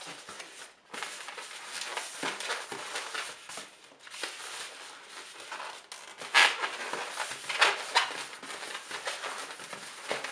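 A long green latex modelling balloon rubbing and crinkling against the hands as it is twisted into small leaf loops, with two louder sharp rubs about six and eight seconds in.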